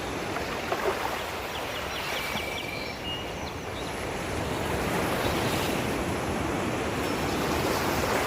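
Outdoor nature ambience: a steady rushing noise with a few faint bird chirps about two to three seconds in, and two short taps about a second in.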